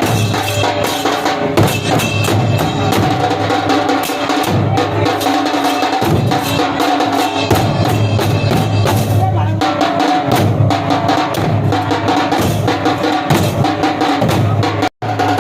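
Muharram procession drumming: fast, continuous beating on several drums over a steady low boom. The sound cuts out for a moment near the end.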